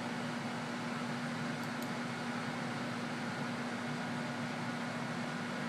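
Steady hum and hiss of a fan-driven machine running, with a constant low tone under it.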